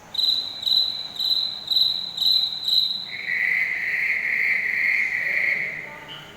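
Insects calling: six short, high chirps at about two per second, then a steady lower buzz from about three seconds in that dies away near the end.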